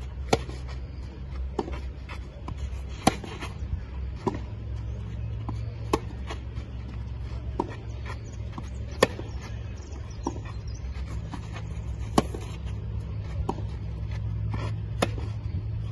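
Tennis rally on a clay court: sharp racket-on-ball hits alternate about every second and a half, the louder ones about every three seconds, over a steady low rumble.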